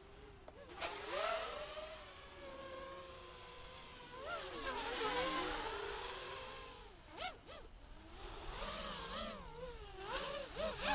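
Racing quadcopter with 2205 2000 kV brushless motors and 5-inch three-blade props in flight, its buzzing whine sliding up and down in pitch as the throttle changes. It is loudest around the middle as the quad passes low and close, with a sharp rise in pitch a couple of seconds later.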